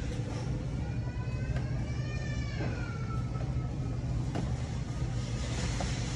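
Steady low hum of a large store's background noise, with a few faint pitched sounds that rise and fall in the first three seconds.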